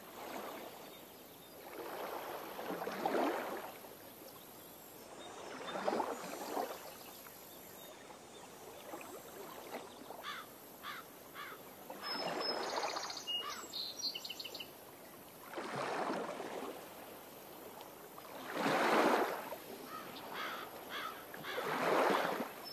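Small waves washing in, swelling and fading every few seconds, with a few short bird chirps in the middle.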